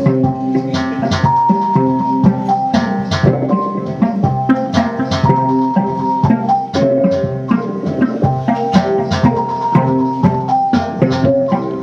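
Instrumental music: a steady drum and percussion beat under long held melodic notes.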